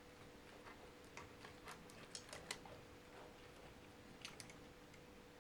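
Faint, scattered small clicks and taps of laptop parts being handled while the mainboard is worked loose, over a faint steady hum.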